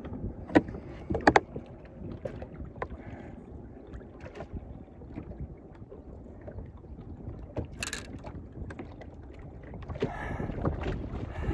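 Knocks and bumps from handling a big carp in a small boat, with a few sharp knocks in the first two seconds and a sharp snap about eight seconds in, over a steady low rumble of wind on the microphone.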